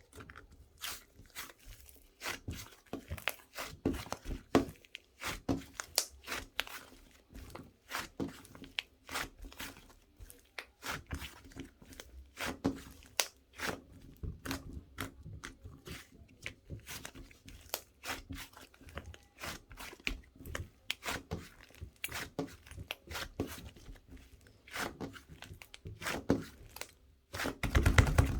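Close, irregular crunching and clicking, several sharp clicks a second, with a louder low thump near the end.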